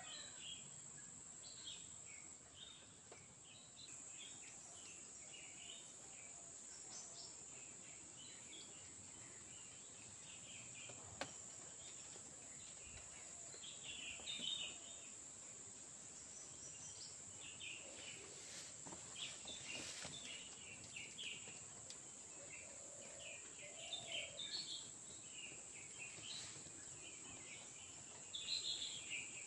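Faint natural ambience: a steady high-pitched insect drone, with birds chirping on and off and a couple of brief soft knocks.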